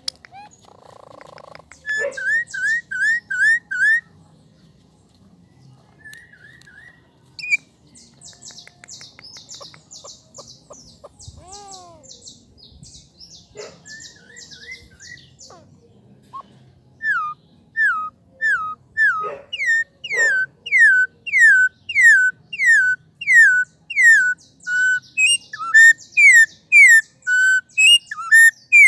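Pet bird whistling: a series of short falling whistled notes, with a fast high chatter in the middle and a long, loud run of falling whistles in the last third that speeds up toward the end.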